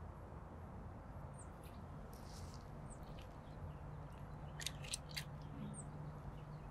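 Light wooden clicks and rustling as thin strips of split wood are laid and set on top of a stacked-log fire reflector, with three sharp clicks close together about two-thirds of the way in.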